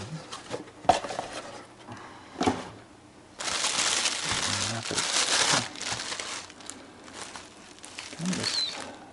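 Plastic packaging crinkling and rustling as parts are handled out of a box. It is loudest for about two seconds in the middle, with a few light knocks before it.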